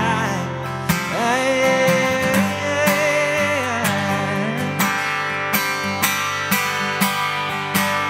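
Live acoustic guitars with wavering sung notes held over them for the first few seconds, then steady strumming about twice a second as the song's ending plays out.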